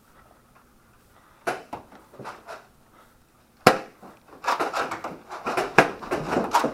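Sharp knocks and snaps from a Nerf Rival Apollo blaster fight: blasters firing and foam balls hitting hard surfaces. A few scattered knocks come first, then a single loud crack about halfway through, then a quick flurry of knocks in the last couple of seconds.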